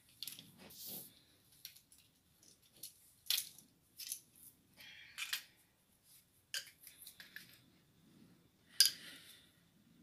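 Scattered small clicks and scrapes of a screwdriver and a wall outlet being handled, with a brief scrape about five seconds in and a sharper click near the end.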